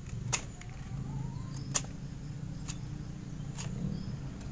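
A small pocket-knife blade scraping the bark off the base of an asoka (ixora) stem cutting in short strokes, with a sharp click about once a second, over a steady low background hum.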